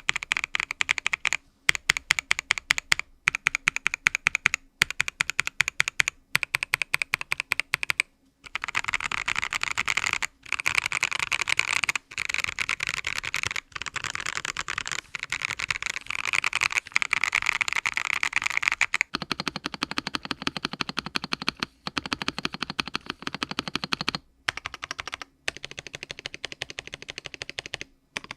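Fast typing on a Vortex GT-6 mechanical keyboard fitted with lubed and filmed Boba U4T tactile switches: dense keystroke clatter broken by a few short pauses. The keystrokes sound deeper for a stretch past the middle.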